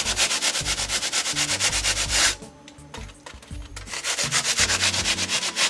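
A hand saw cutting through set expanding foam with rapid back-and-forth scraping strokes. It stops for about two seconds partway through, then resumes.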